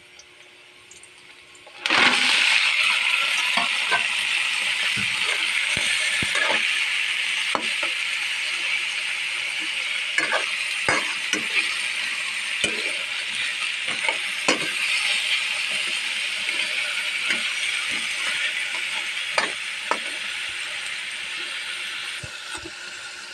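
Crab pieces sizzling in a hot pan of sautéed garlic and onion: a loud frying hiss sets in suddenly about two seconds in and eases near the end, with scattered clicks and knocks of the spatula and crab shells against the pan.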